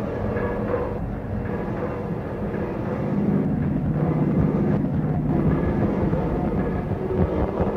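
Outdoor ambience recorded through an apartment window, filtered and effected in real time: a dense low rumble like distant traffic, with a few steady droning tones over it, swelling slightly about three seconds in.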